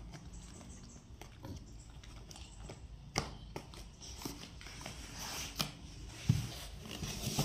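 Foam play mat being handled and lifted: scattered soft taps, knocks and rustles, with a louder low thump about six seconds in.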